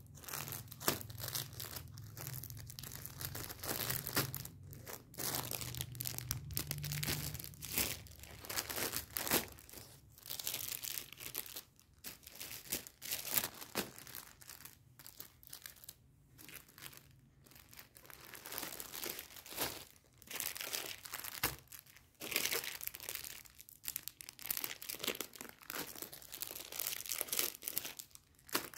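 Clear plastic packaging of baby clothes crinkling as it is handled, in irregular bursts with short pauses between.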